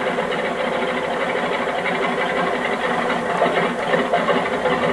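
Sukhoi aerobatic plane's nine-cylinder radial engine running steadily just after start-up, propeller turning.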